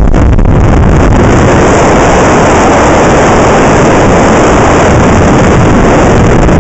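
Loud, steady wind noise battering the microphone of a camera on a motorcycle riding along a gravel road, with the ride's rumble underneath; the rush grows heavier about a second and a half in.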